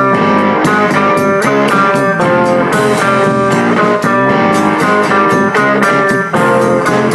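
Background music: a guitar-led instrumental with plucked notes and a steady beat.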